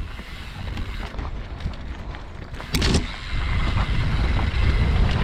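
Mountain bike rattling down a rocky trail, with wind rushing over the microphone; a sharp clatter about three seconds in, after which the rumble gets louder.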